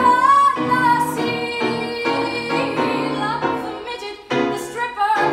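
Solo female voice singing a musical-theatre song through a microphone over instrumental accompaniment, holding a high note near the start and pausing briefly about four seconds in.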